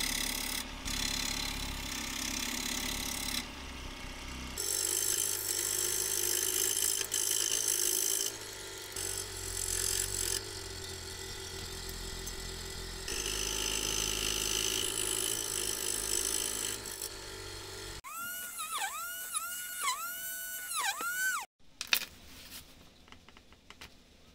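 Scroll saw running and cutting a small piece of thin wood with a paper pattern glued on; the hum and blade noise shift several times through the cut. Near the end come a few seconds of repeated rising and falling squeals that cut off suddenly, then faint clicks of small wooden parts being handled.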